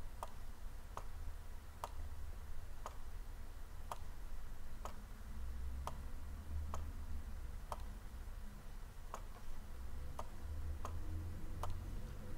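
Computer mouse clicking about once a second, single sharp clicks while input routing is assigned in software, over a faint low hum.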